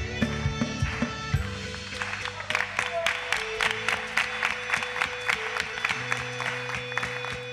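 Worship-band music led by an electric guitar over held chords and a beat; about two seconds in, quick, even hand clapping joins in time, about three claps a second.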